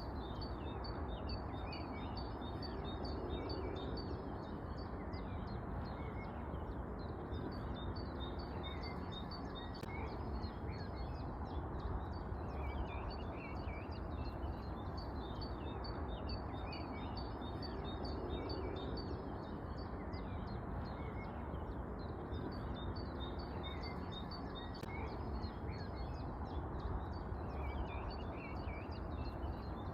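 Many small birds chirping continuously, dense overlapping short calls, over a steady low rumble.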